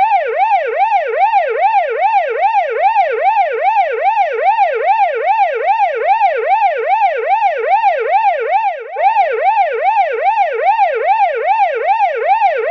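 Emergency-vehicle siren sound effect in a fast yelp, its pitch rising and falling about three times a second. It dips briefly about nine seconds in.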